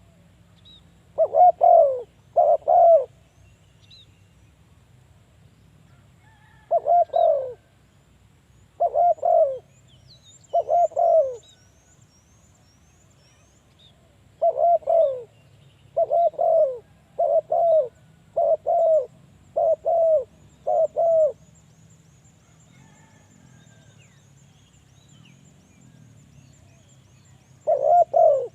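Spotted dove cooing: about a dozen short coos, each falling in pitch, coming singly, in a pair and in a run of six, with long pauses between phrases. Faint high chirps run in the background.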